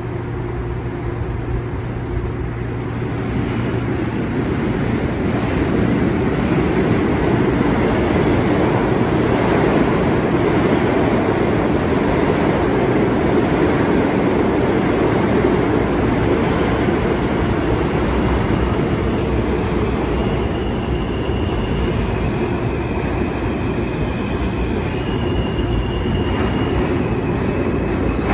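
R68A/R68 New York subway train approaching through the tunnel: a steady rumble that swells over the first few seconds, with thin high wheel squeals coming and going from about two-thirds of the way through.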